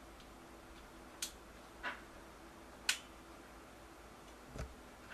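Four sharp, separate clicks of small metal bicycle parts and tools being handled during rear brake assembly, the third the loudest, over a faint steady hum.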